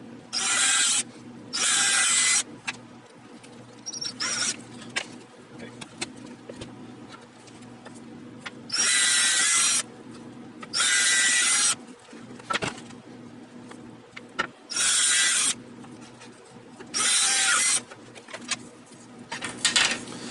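Drill boring a series of holes in wood: about seven short bursts of cutting noise, each under a second, over a steady low motor hum.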